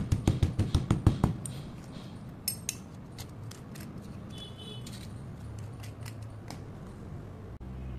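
A metal spoon stirring and scraping crushed slate chips in a glass bowl: gritty scraping with scattered light clinks and a brief high squeak. It opens with a fast run of loud crunching knocks that stops a little over a second in.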